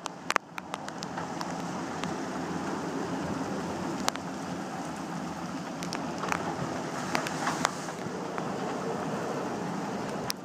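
Gale wind and breaking sea around a sailing yacht in heavy weather: a steady rushing noise, with scattered sharp taps and clicks, a burst of them in the first second and more between about six and eight seconds in.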